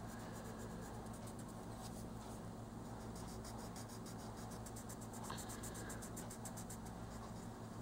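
An oil-based colored pencil scratching on coloring-book paper in quick, evenly repeated back-and-forth shading strokes, faint.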